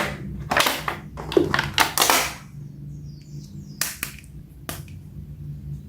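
Plastic packaging crinkling and clicking as a boxed toy action figure is handled and unpacked. Most of the crackle comes in the first two seconds, followed by a few single clicks, over a low steady hum.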